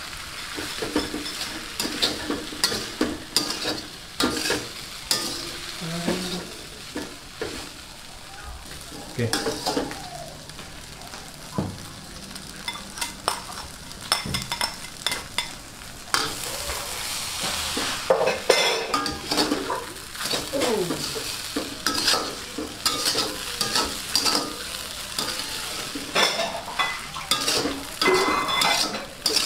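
Food stir-frying in a pan over a steady sizzle, a metal spatula repeatedly scraping and knocking against the pan.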